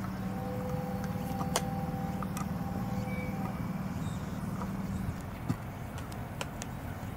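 Slow train passing, led by a Chichibu Railway Deki electric locomotive hauling delivery cars, its wheels clicking over the rail joints. A steady hum stops about five seconds in, and a faint whine is heard over the first few seconds.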